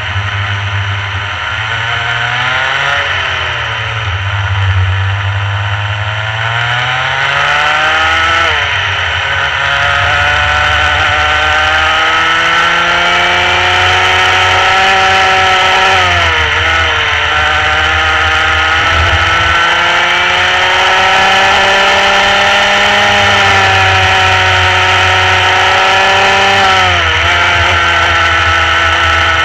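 Rotax Mini Max kart's 125 cc single-cylinder two-stroke engine at race pace, its pitch climbing steadily along each straight and dropping sharply off the throttle for corners, about four times.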